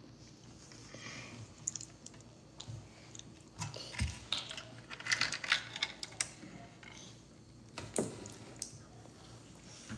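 Small plastic toy pieces of a Polly Pocket playset clicking and tapping as they are handled and fitted together, a scatter of light irregular clicks with a few sharper taps.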